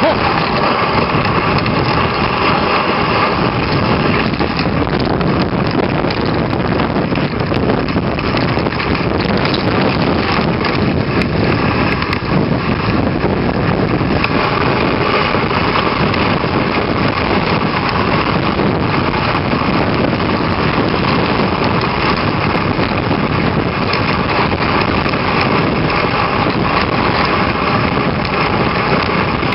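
Dog sled gliding over a packed snow trail behind a trotting dog team: the runners give a steady loud hiss and scrape, with wind rumble on the microphone.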